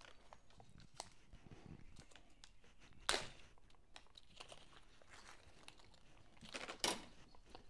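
Faint handling noises of small parts being worked by hand: a few light clicks and rustles, the loudest about three seconds in and a short cluster near the end.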